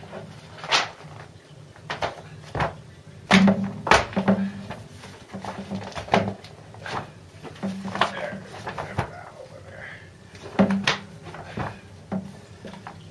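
Irregular knocks and clacks of things being handled in a small room, a dozen or so at uneven spacing, over a steady low hum.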